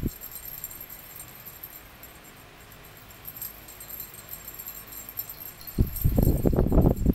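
Cat-teaser toy jingling faintly as it is waved and batted. About six seconds in, a burst of loud thuds and scuffles as the cats pounce and tumble on the floor.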